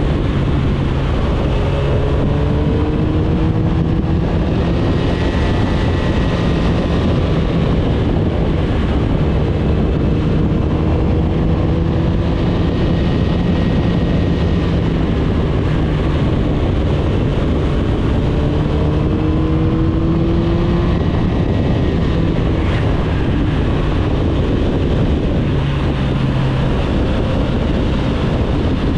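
Motorcycle engine running under way, heard with heavy wind rush over the microphone. The engine note rises slowly in pitch several times.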